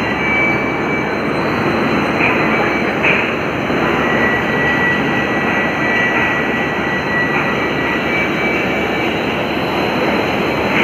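Textile three-bowl mangle and drying range running: a steady machine noise from the turning steel rollers and drives, with a faint steady high whine.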